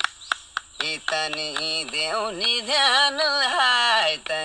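Film background music: a few evenly spaced percussion beats, then, about a second in, a melody of held, ornamented notes in an Indian classical style takes over, pausing briefly near the end.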